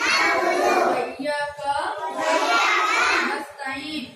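Young children chanting an Islamic prayer in a sing-song recitation, in phrases of about a second with short breaks between them.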